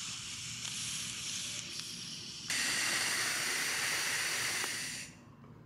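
Butane jet torch lighter hissing as its flame is held on a bong bowl. About two and a half seconds in, the hiss turns suddenly louder and fuller, then cuts off about five seconds in.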